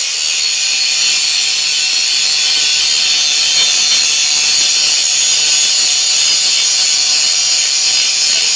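Angle grinder grinding the rim of a curved steel plate, a steady, loud, high-pitched grinding.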